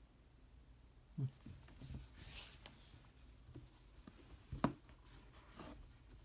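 Cardboard Blu-ray disc panels being handled and slid against each other and a wooden case: a soft knock about a second in, a faint scraping rustle, then a sharp tap past halfway and a lighter one after it.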